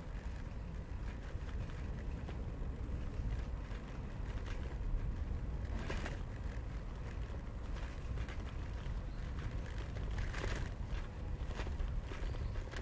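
Bicycle ride noise: a steady low rumble of wind and tyres on the microphone, with a few brief clicks, the clearest about six seconds in and again near the end.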